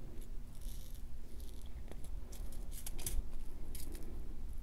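Faint, scattered clicks and ticks of glass seed beads and their plastic tubes being handled on a beading mat, over a low steady hum.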